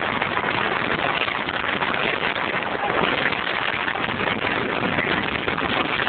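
Steady engine and road noise inside the cabin of a 1.4-litre Rover 214Si on the move.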